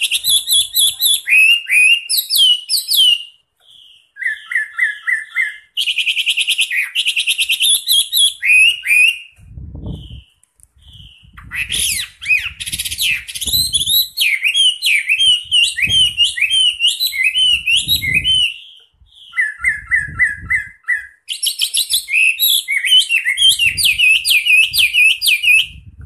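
A Chinese hwamei (melodious laughingthrush) in full, loud song: runs of varied whistles, quick repeated notes and rising and falling slurs, with a few short pauses.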